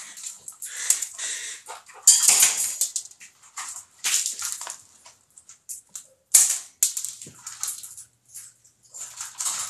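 Parrots squawking: a string of short, harsh calls, the loudest about two, four and six seconds in.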